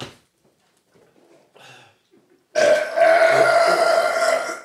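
A long, loud burp lasting about two seconds, starting a little past halfway, forced out after chugging a carbonated soda.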